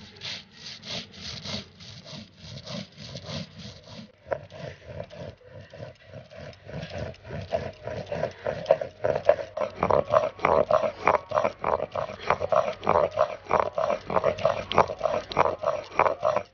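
Stone roller grinding spices on a flat grinding stone (sil-batta): rhythmic back-and-forth grating strokes of stone on stone through a wet paste, getting stronger and louder about halfway through.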